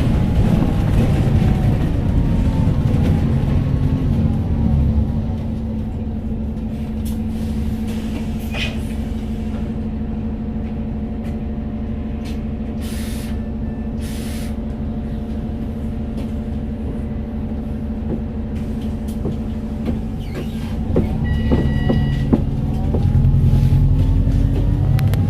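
Volvo B5TL double-decker bus engine and ZF automatic gearbox heard from on board: the engine note falls as the bus slows, settles into a steady idle hum with two short hisses of air about halfway through, then rises as the bus pulls away near the end. A brief electronic beep sounds just before it moves off.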